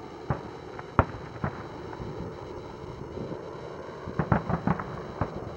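Aerial firework shells bursting: a few sharp bangs, the loudest about a second in, then a quick run of five or six bangs near the end.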